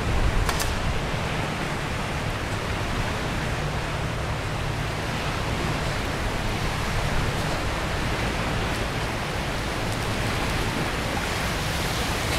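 Steady rushing wind noise on the microphone, with a low rumble, and one brief click of camera handling about half a second in.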